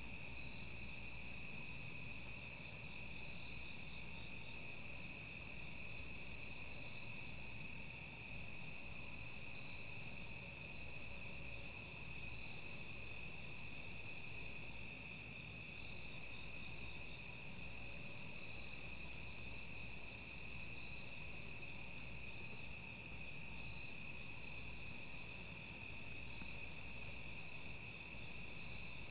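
Night-time chorus of insects: a steady high trill, made of several layered voices, that dips briefly every two to three seconds.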